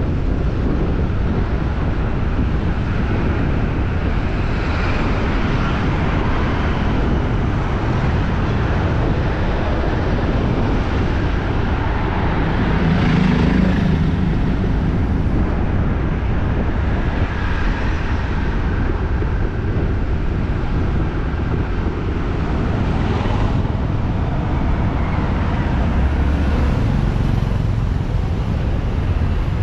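City street ambience: a steady rumble of traffic, with vehicles swelling louder as they pass now and then.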